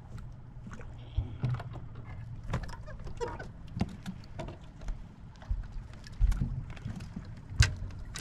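Small waves lapping against a fishing boat's hull over a steady low rumble, with scattered short knocks and clicks on the boat.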